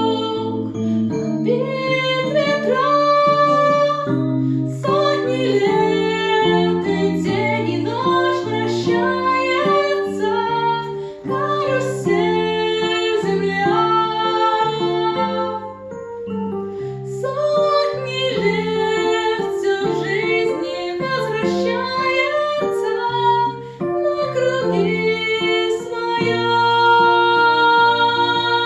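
Music: a song with a female singing voice over instrumental accompaniment.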